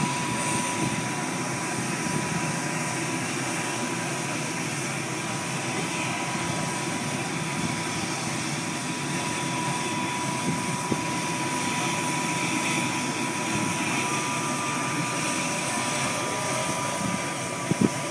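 US Coast Guard MH-60 Jayhawk helicopter on the ground with its turbine running and the rotors not yet turning: a steady high whine over an even rushing noise. A second, slightly higher whine joins about two-thirds of the way through, and a couple of sharp clicks come near the end.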